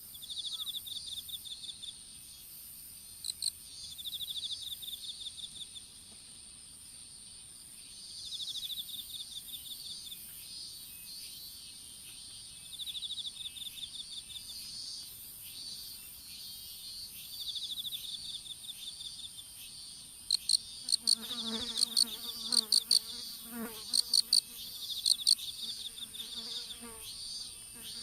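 Field insects singing: crickets giving repeated short pulsed trills every few seconds over a steady high-pitched whine. In the last third, a run of loud sharp ticks and a lower pitched call join in.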